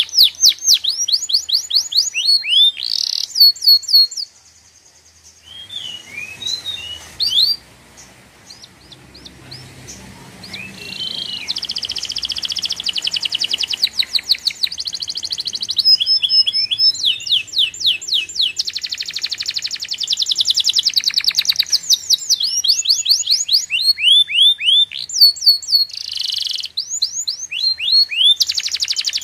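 A small bird singing: fast trills of repeated high, downward-sweeping notes, breaking off about four seconds in and building back into near-continuous trilling.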